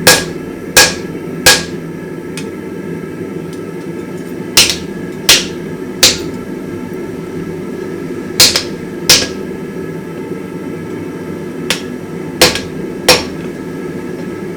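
Hammer blows on a hot damascus steel billet on the anvil: about eleven sharp, ringing strikes in groups of two or three, about 0.7 s apart, with pauses between the groups. A steady hum runs underneath.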